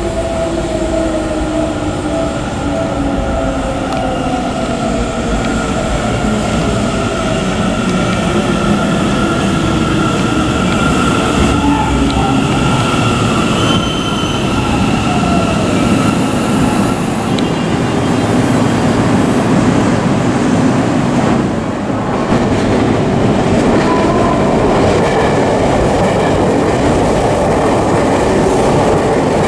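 Seibu 30000 series electric commuter train pulling into the station and braking: the whine of its inverter-driven traction motors falls steadily in pitch over the first fifteen seconds or so as it slows. After that comes a steady rail rumble.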